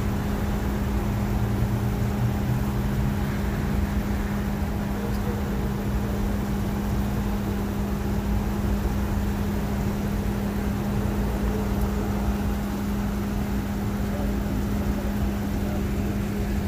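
Patrol car idling close by: a steady low hum with a rumble underneath.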